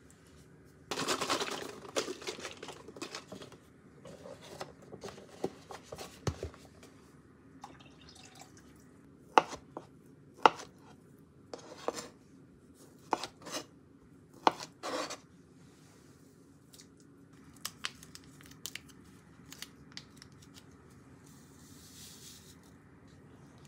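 Kitchen handling sounds: a busy, noisy stretch of a couple of seconds near the start, then a knife cutting through a steamed sweet potato and knocking down on the cutting board, about seven sharp knocks between roughly 9 and 15 seconds in.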